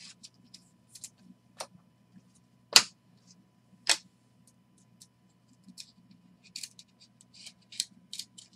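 Hockey trading cards being flipped through by hand: sharp clicks and snaps of card stock, the loudest a little under three seconds in and another about a second later, with softer rustling and ticks near the end, over a low steady hum.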